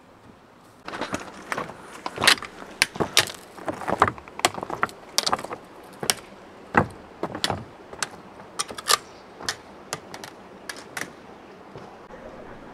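Trekking pole tips and boots striking rocks as a hiker climbs a boulder field: irregular sharp clicks and clacks, starting about a second in and thinning out near the end as the hiker moves away.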